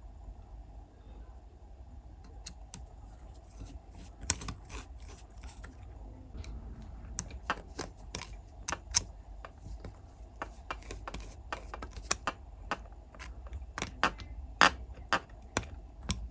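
Irregular sharp clicks and taps of small metal parts being handled and fitted by hand, denser from about four seconds in, over a low steady hum.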